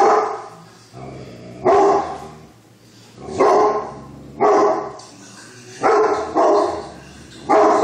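Great Pyrenees barking: about seven loud barks at irregular intervals of one to two seconds, two of them close together past the middle.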